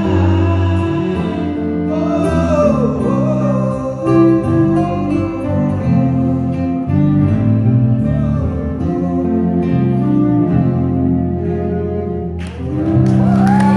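Male voice singing over cello and acoustic guitar, holding long sustained chords as the song closes. About twelve and a half seconds in the music dips and audience applause breaks out.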